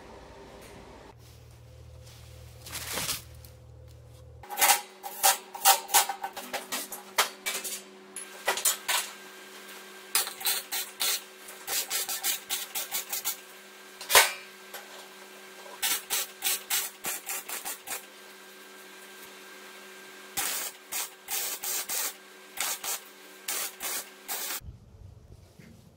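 Electric arc welding done in short bursts: a run of crackling tack welds, each lasting a fraction of a second to about a second, over a steady hum. The welding starts about four seconds in, pauses twice briefly, and stops shortly before the end.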